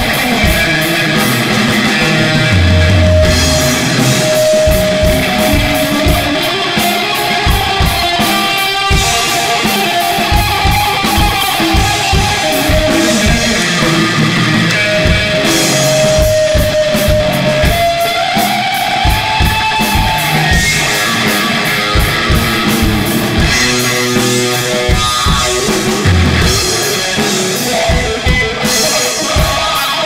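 Live rock played on electric guitar and drum kit, loud and noisy, with busy drumming under held guitar notes; a little past halfway one guitar note is bent upward and held.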